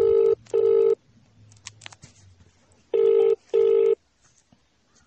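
Telephone ringback tone on a call that has not yet been answered: two double rings about three seconds apart, each two short low beeps with a brief gap, the British-Irish double-ring cadence.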